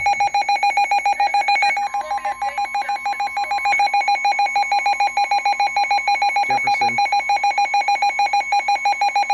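Emergency alert attention tone for a severe thunderstorm warning: a loud, fast-pulsing electronic beep with a fainter steady tone joining it about two seconds in.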